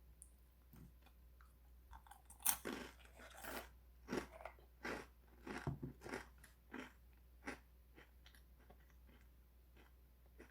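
A crisp breadstick, dipped in hazelnut spread, bitten with one sharp crunch, then chewed in a run of irregular crunches that die away toward the end.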